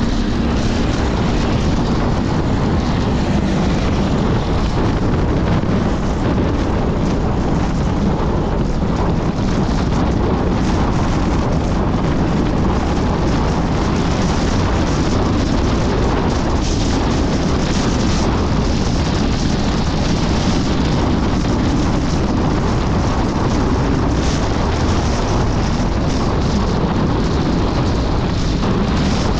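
Steady road and wind noise of a Chevrolet S10 pickup driving at speed, heard from inside the cab. The noise is heavy in the low range and unchanging, with no separate knocks or events.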